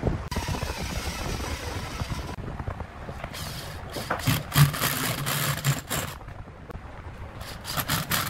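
Handling noise from a rough log and a metal mounting flange on a wooden workbench: a long scrape early on, then a run of sharp knocks and clicks, with another cluster near the end.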